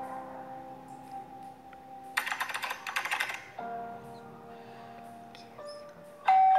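A quick run of keyboard typing clicks lasting about a second and a half, over soft sustained music chords; a louder chord comes in near the end.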